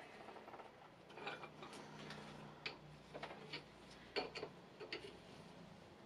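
Light, scattered metallic clicks and taps, most of them between about two and a half and five seconds in, as a spanner is fitted to and worked on a bolt of a scooter's front fork clamp.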